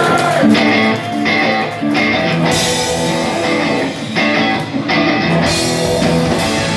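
Punk rock band playing live with electric guitars and drum kit, chords changing with cymbal crashes about two and a half and five and a half seconds in.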